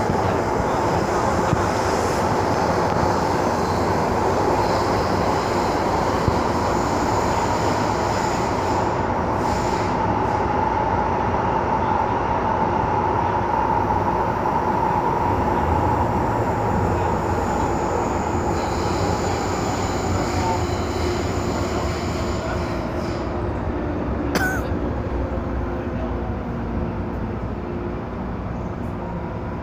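An MTR M-Train heard from inside the car as it runs through a tunnel: a steady rumble of wheels on rail with a faint high whine. The sound gradually quietens near the end, with one sharp click about 24 seconds in.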